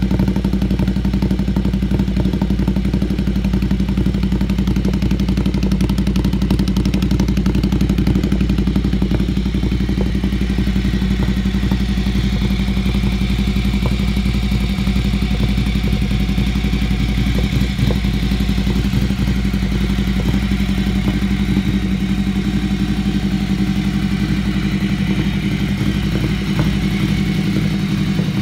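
Ducati Monster 797's air-cooled L-twin engine idling steadily through an HP Corse GP07 slip-on exhaust.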